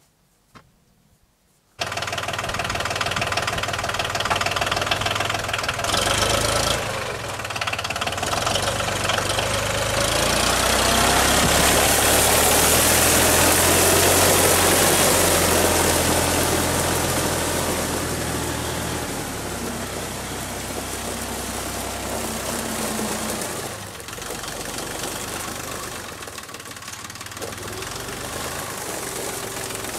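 Compact tractor engine running. It cuts in suddenly about two seconds in, grows loudest through the middle as the tractor passes close by, then fades somewhat as it drives away.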